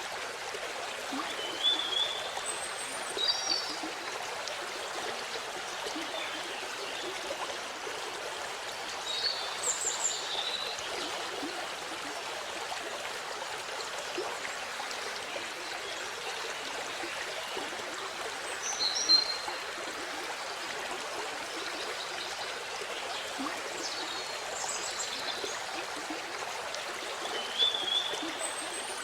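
Waterfall running steadily, an even rush and splash of falling water, with a few short high chirps now and then.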